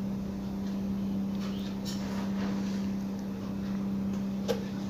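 A steady low hum with a single light click near the end.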